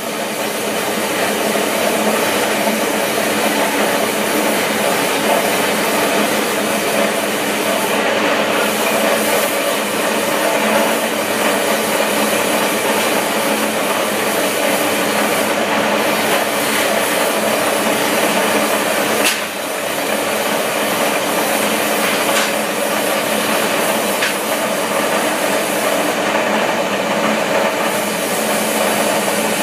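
Propane gas burner running under a lead-melting pot, a steady, loud hiss with a brief dip about two-thirds of the way through.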